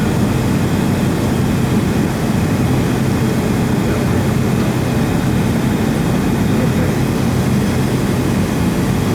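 Steady cabin noise inside a Boeing 757 taxiing on the ground: a constant low drone from the engines at idle.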